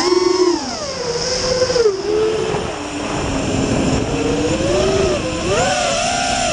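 FPV racing quadcopter's brushless motors and propellers whining, the pitch jumping up at the start, falling back soon after and swelling again near the end as the throttle is worked.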